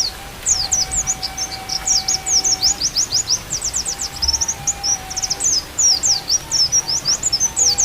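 White-eye (pleci) singing a fast, high twittering song of quick rising and falling chirps. Faint held flute notes sound beneath it.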